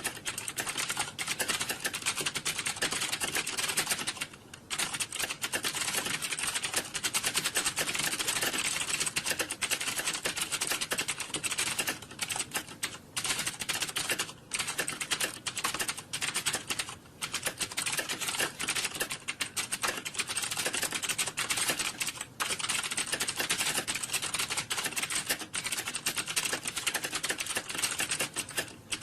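Computer keyboard typing: rapid, continuous key clicks with a few brief pauses, around 4.5 seconds in and a handful more later.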